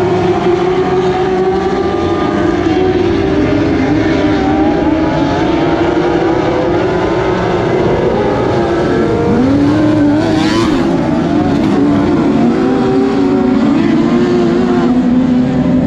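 Several motorcycle-engined dwarf race cars running together, their high engine notes rising and falling and overlapping as they lap.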